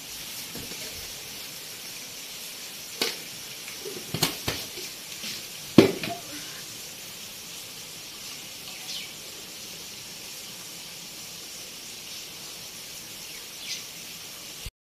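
Steady hiss around a pot of milky tea boiling on a small gas-cylinder burner. A few sharp metal clinks, like a spoon striking the pot, come between about three and six seconds in, the loudest near six seconds, and two fainter ones follow later.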